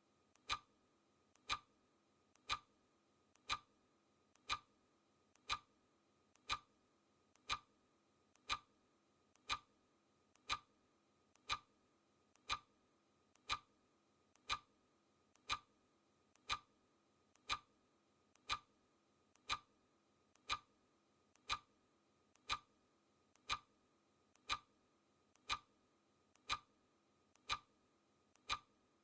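Clock-style ticking sound effect marking each second of a countdown timer: one sharp tick every second, each with a much fainter click just before it.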